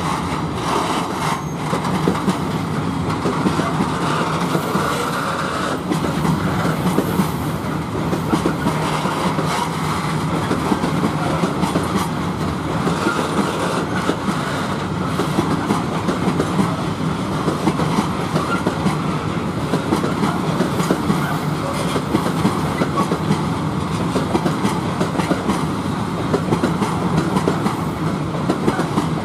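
Freight train of tank wagons rolling past, steel wheels clicking over the rail joints over a constant rumble of the cars.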